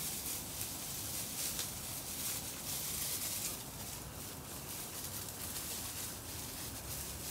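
German Shorthaired Pointer pups shuffling through straw bedding as they crowd in to nurse, a steady rustle of many small crackles, busiest in the first half.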